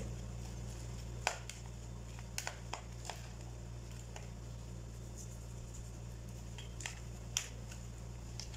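Metal spoon stirring chopped tomato, onion and chile in a bowl to mix in the salt, with scattered light clicks as it knocks against the bowl, over a steady low hum.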